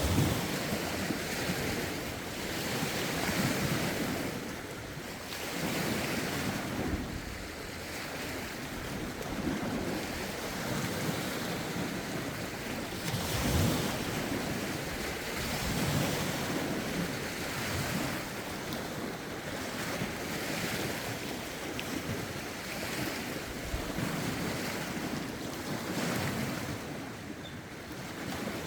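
Lake waves washing in, in rough wind, swelling and easing every few seconds, with wind buffeting the microphone.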